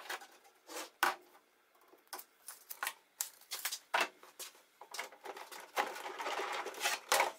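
Workshop handling noises: a string of light clicks and knocks, then the wooden tabletop sliding and scraping across the table saw's metal top for about a second near the end, finished by a knock.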